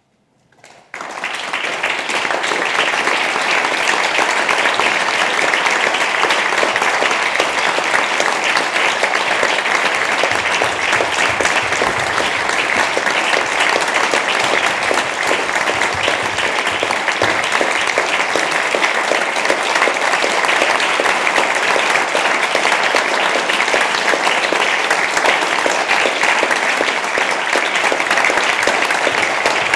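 Theatre audience applauding at a curtain call, the clapping breaking out suddenly about a second in and then going on thick and steady.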